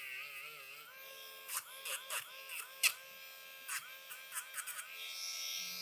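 Electric dog nail grinder with a sanding drum running against a dog's toenails. Its high steady whine dips briefly in pitch again and again, with short scraping ticks as the nail is ground down.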